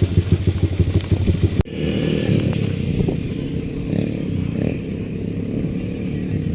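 ATV engine running with a fast, even pulsing. About a second and a half in, the sound cuts off abruptly and gives way to a steadier low engine drone.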